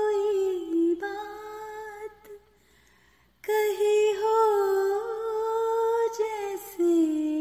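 A woman singing a slow ghazal melody unaccompanied, in long held notes that slide slowly in pitch, with a break of about a second in the middle.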